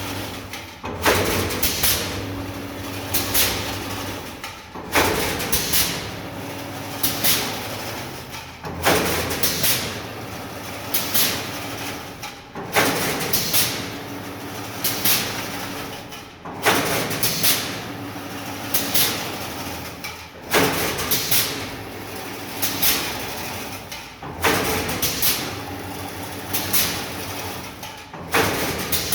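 Kontelmak YGZ-220 automatic chain-link fence weaving machine running: a steady motor hum under a loud metallic clanking cycle that repeats about every four seconds, with lighter clicks between the strokes.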